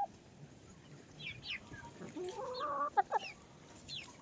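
Chickens clucking quietly, with a few short high chirps, a soft drawn-out call about two seconds in and a brief click about three seconds in.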